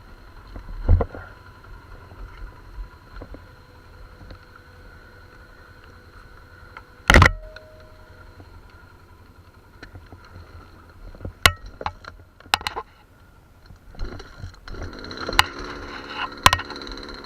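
A few sharp knocks and clunks, the loudest about seven seconds in, then near the end an ATV engine starts and runs at idle.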